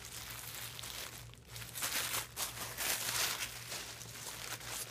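Tissue paper rustling and crinkling as it is pulled away by hand. It is louder for a couple of seconds in the middle.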